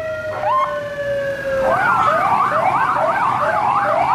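Police car siren: a long wail slowly falling in pitch, broken by short upward chirps, then a fast yelp sweeping up and down about three times a second from nearly two seconds in.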